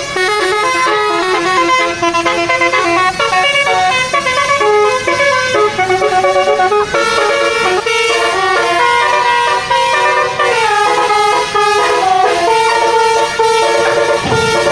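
Bus telolet basuri horn, a set of musical trumpet horns, playing a tune: several notes sounded together, held and changing pitch in steps.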